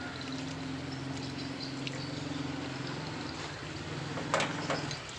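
A steady low mechanical hum, with a short click about four seconds in.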